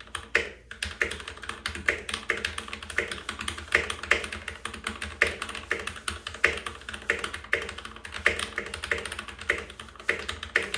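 Typing on a Keychron C2 full-size mechanical keyboard with Keychron Brown tactile switches: a quick, continuous run of key clacks.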